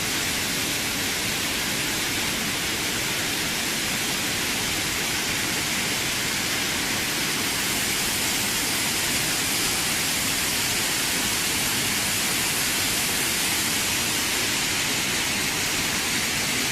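Waterfall in Saarburg rushing: a steady, even wash of falling water, heaviest in the upper range, without change or break.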